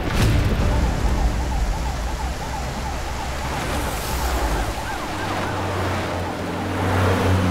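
Police siren wailing rapidly up and down, opening with a low boom. A vehicle engine hum joins about five seconds in as police vehicles approach.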